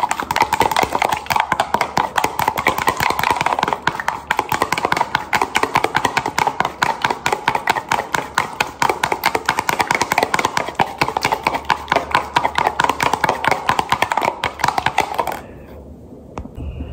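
Raw eggs being beaten by hand with a metal spoon in a plastic food container: a fast, steady clatter of the spoon against the plastic, stopping near the end.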